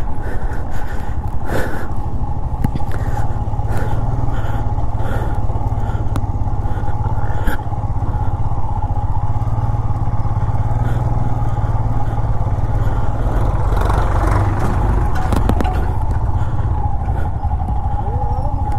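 Motorcycle engine running at low speed while riding down a rough dirt track, with frequent knocks and rattles from the bike over the bumps, most of them in the first half.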